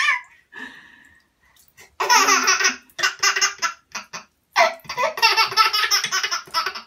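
Baby laughing hard in repeated bursts of belly laughs. The laughter starts about two seconds in and runs longer near the end.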